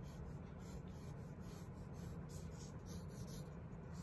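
Pencil sketching on paper: short, faint scratching strokes, two or three a second, over a steady low room hum.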